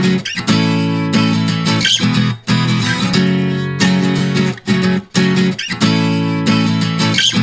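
Background music with strummed guitar chords.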